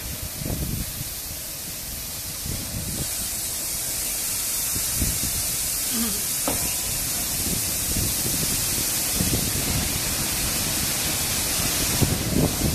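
Rollover automatic car wash machine spraying water on a car as its gantry and rotating brushes work: a steady hiss of spray that grows louder about three seconds in, over an uneven low rumbling.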